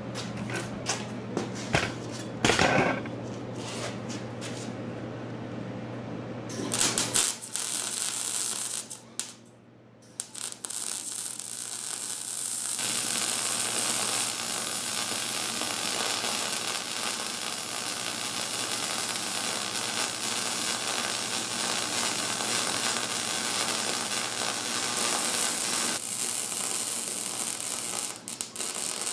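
Gas-shielded MIG wire-feed welder arc crackling and sizzling steadily as a long bead is laid on bare steel, starting about ten seconds in after a brief pause. Before that, a few clicks and knocks of handling over a low hum.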